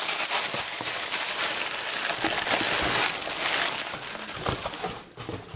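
Tissue paper and clear plastic wrap rustling and crinkling as hands pull them apart to unwrap a package, a dense crackle that dies down about five seconds in.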